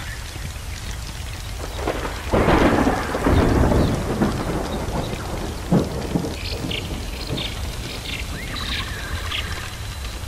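Thunder swells and rumbles from about two seconds in, over a continuous bed of crackling, rain-like noise. A sharp crack comes a little later, then a string of short high calls in the second half.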